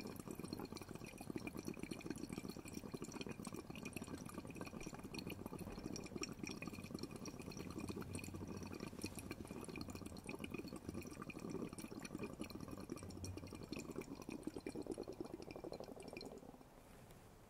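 Faint, steady bubbling of breath blown through a tube into limewater in a measuring cylinder, stopping shortly before the end. This is the limewater test for carbon dioxide in exhaled breath.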